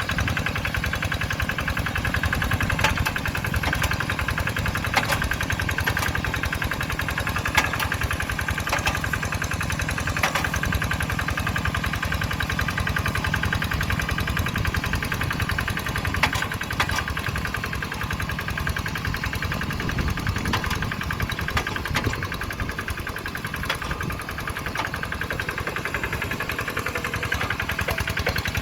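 Single-cylinder Kubota RD85DI2s diesel engine of a Quick Zeva G3000 hand tractor running steadily, with a few sharp clicks standing out from the engine's rapid beat.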